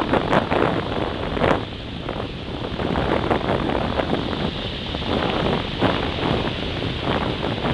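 Wind buffeting the microphone over small waves breaking and washing up on a sandy river shore, with irregular louder gusts and wave breaks.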